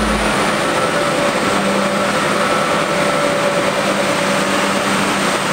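Mazda RX-8 on a chassis dyno just after its power run, giving a loud, even rush of running noise with no revving. A faint high whine slowly falls in pitch through it.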